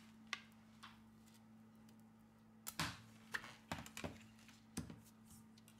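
Faint scattered clicks and taps as a Samsung Galaxy S7 Edge's glass back cover and phone body are handled and laid down on a hard work surface, over a faint steady hum.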